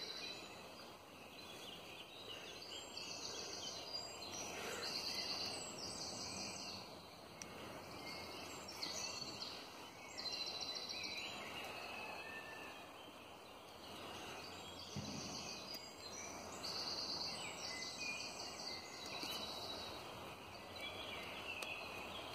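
Birdsong: short, high, rapid trills repeated every second or two over a steady outdoor hiss.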